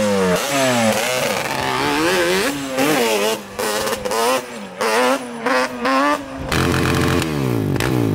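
Sport ATV engine revving and accelerating through the gears, its pitch climbing and dropping again with each shift, with a few short throttle blips in the middle. Near the end a steadier engine note falls in pitch.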